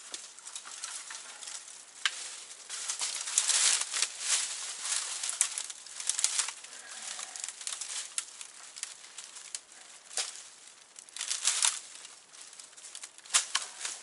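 Handsaw cutting through dense tree wood: a series of uneven saw strokes with short pauses between them.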